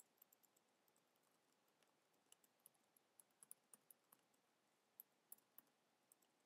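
Faint, irregular keystrokes on a computer keyboard: someone typing a sentence, in quick clusters of taps with short pauses between.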